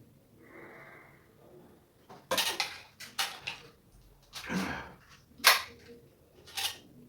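About six sharp clicks and clatters as a DJI Mini 3 drone and its parts are handled and taken apart for inspection; the loudest comes about five and a half seconds in.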